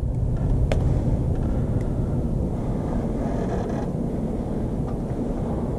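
Steady low outdoor rumble, with a sharp click just under a second in and a fainter one about two seconds in.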